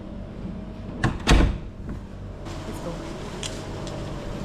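Two loud, sharp knocks in quick succession about a second in, over a steady low hum.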